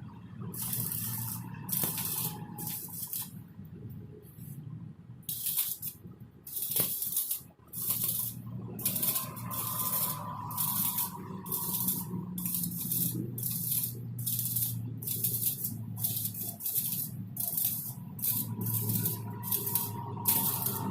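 Electric arc welding: the arc sizzles and crackles in many short bursts, each about half a second, as a bead is laid in quick strokes, over a steady low hum.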